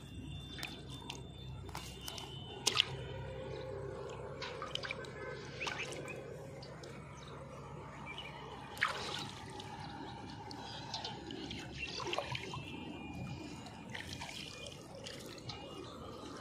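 Water splashing and dripping in a shallow basin holding freshly caught tilapia, with many small splashes and two sharper ones, about three seconds in and near nine seconds.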